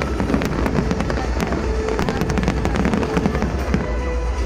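New Year fireworks display going off: many rapid, sharp crackles and bangs, several a second, with music playing underneath.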